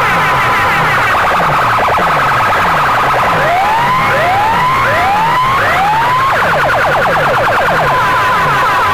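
Electronic siren-style sound effects blasted through big DJ loudspeaker boxes in a sound-system competition: fast warbling chirps over a low bass sweep that falls about twice a second, with four rising whoops near the middle.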